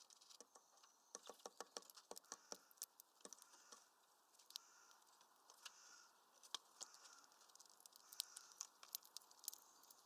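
Faint, irregular clicks and taps of small finches at a window feeder, their claws and beaks on the twig perch and plastic tray, in quick runs in the first few seconds and scattered after.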